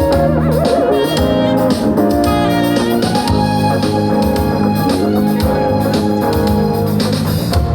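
Live band playing an instrumental introduction: sustained organ-like keyboard chords over bass, with drums keeping time.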